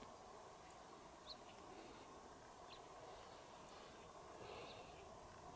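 Near silence: faint outdoor ambience with a few short, high bird chirps spaced a second or more apart.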